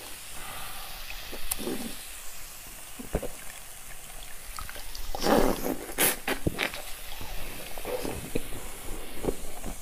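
Wet mouth sounds on a block of frozen cola: sucking and slurping at the melting ice, with scattered sharp clicks. The loudest is a burst about five seconds in, followed by a sharp click.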